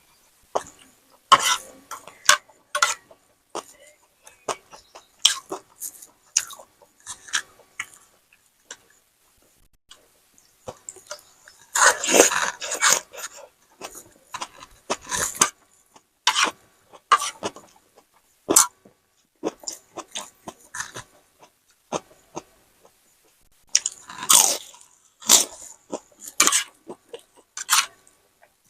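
Close-miked mouth sounds of eating rice with beef soup, crackers and raw cabbage: irregular chewing and short crunchy clicks throughout, with two longer, louder noisy bursts, one about halfway through and one near the end.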